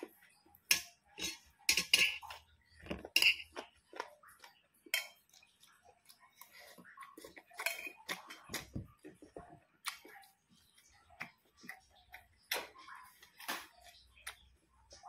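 Close-up eating sounds: an irregular string of sharp clicks and smacks from chewing and lips, mixed with a spoon knocking on a rice plate.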